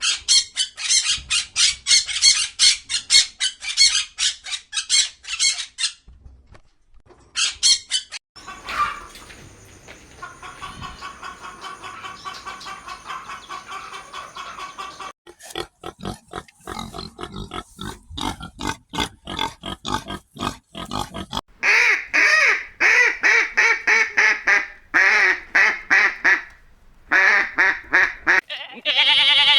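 A string of different animal and bird calls, one kind after another with short gaps: fast high chirping first, then a steadier pitched call, a run of rapid clicks, and repeated calls near the end.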